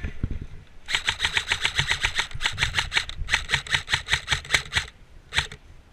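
Airsoft electric rifle firing full-auto: a short burst of rapid, evenly spaced shots about a second in, a brief pause, then a longer burst. A last short burst comes near the end.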